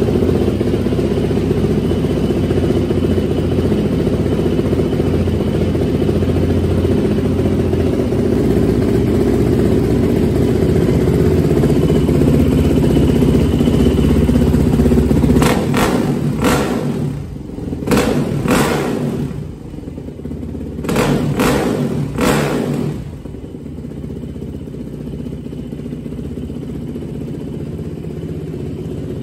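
Yamaha YZ426F four-stroke single-cylinder dirt bike engine holding a steady idle after a carburetor clean and valve adjustment. About halfway through it is blipped through a quick series of about seven short throttle revs, then settles back to a quieter, steady idle.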